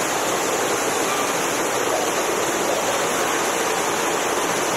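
Rushing water of a lazy-river ride: a steady, even hiss with no breaks.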